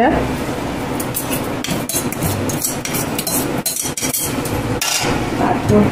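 Kitchenware clinking and knocking: a bowl and spoon tapping and scraping against a large metal pot as gravy is spooned over layered rice, many quick clinks in a row.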